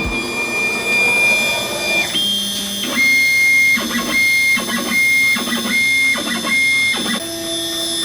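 Stepper motors of a CNC router whining as the machine moves. A steady high whine for about two seconds, then five short identical whines about a second apart, then a lower steady tone near the end.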